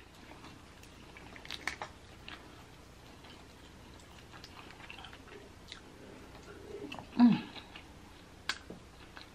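Close-up eating sounds: Dungeness crab shell cracked and pulled apart by hand, with scattered sharp cracks and clicks, and chewing. A short hum about seven seconds in.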